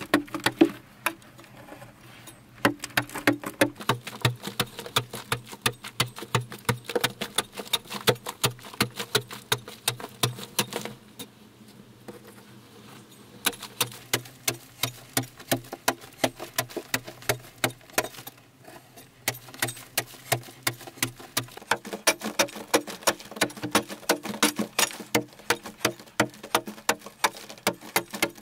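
Hand digging tool chipping into packed earth: quick repeated strikes, about three to four a second, with a pause of a couple of seconds near the middle.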